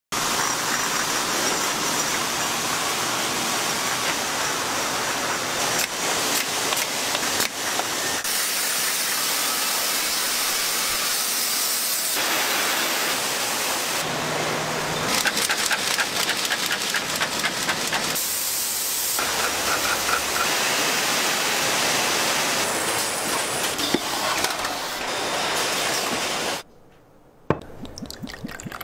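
Steady hissing and clattering noise of a bottling line's machinery, with stretches of rapid ticking and clinking. The sound changes abruptly every few seconds, then drops much quieter near the end, with a few light clicks.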